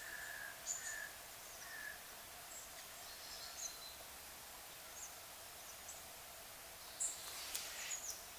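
Small birds chirping faintly now and then over a steady background hiss, with a short cluster of sharp clicks and chirps near the end.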